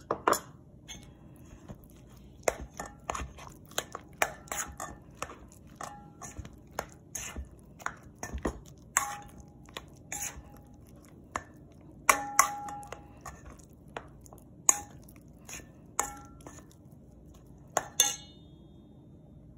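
A metal fork stirring a thick mayonnaise-and-cheese mixture in a stainless steel mixing bowl, clinking and scraping against the bowl in an irregular run of knocks. The louder knocks leave the bowl ringing briefly, most strongly near the start, about twelve seconds in and near the end.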